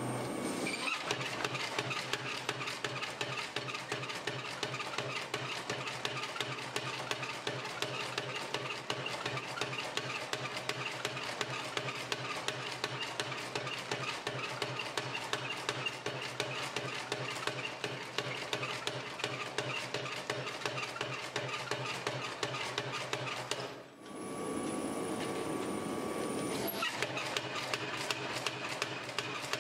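Power hammer pounding a red-hot axe blank in rapid, even blows, over a steady low hum. The blows break off briefly about three quarters of the way through, then start again.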